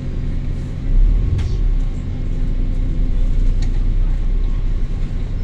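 Bus diesel engine running with a steady low rumble. A short click comes about a second and a half in.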